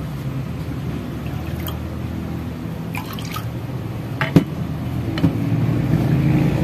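Glutinous rice flour batter dripping and trickling through a stainless mesh strainer into a glass bowl, over a steady low hum. A few light clicks sound, with a sharp knock about four seconds in.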